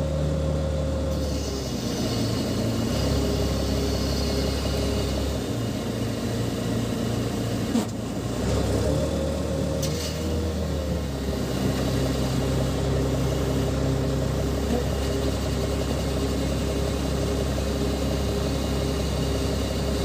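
Crane's diesel engine running, heard from inside its cab, its engine note shifting in pitch a few times while it lifts a steel road roller. A single knock about eight seconds in.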